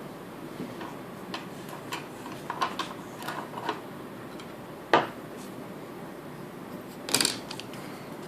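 Laptop parts and tools being handled during reassembly of an HP Pavilion g6 cooling fan: scattered small clicks and taps, one louder sharp click about five seconds in and a short rattle of clicks near seven seconds, over a steady low hiss.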